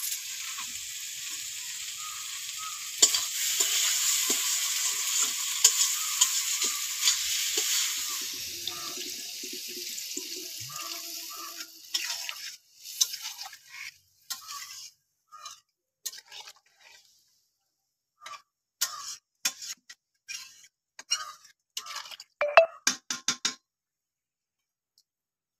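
Food frying in a two-handled steel pan, a steady sizzle that gets louder about three seconds in and fades out by about twelve seconds in. After that, scattered scrapes and clinks of a spoon stirring the curry against the metal pan.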